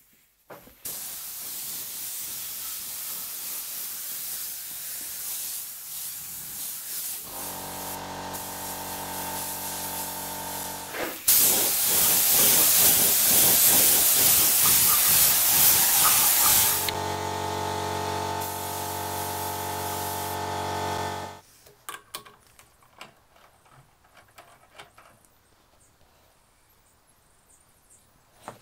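Compressed-air spray gun hissing steadily as it sprays finish. The hiss is loudest in the middle and stops about three-quarters of the way in. A steady hum with several tones runs alongside it in two stretches. After that there are only faint small clicks.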